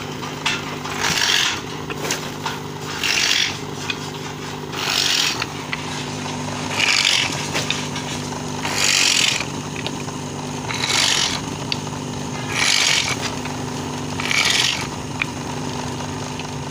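Electric motor running steadily with a low hum, its abrasive disc grinding wooden sickle handles in short rasping bursts about every two seconds, about eight in all, as each handle's tip is rounded.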